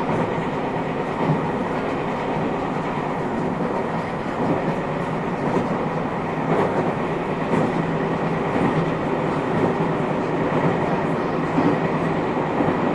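Inside a JR West 221 series electric multiple unit's motor car (KuMoHa 221-70) running along the line: a steady rumble of wheels on rail with a faint, even hum from the traction motors and gears, and a few scattered clacks.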